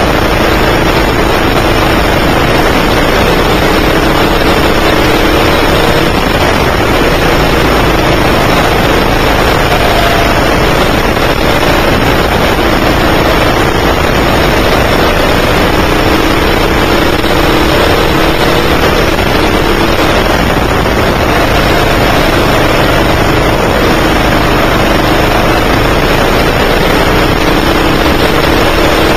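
9 hp kart engine heard from the driver's seat under a loud constant rush, its pitch repeatedly climbing and dropping as the kart speeds up on the straights and slows for the corners.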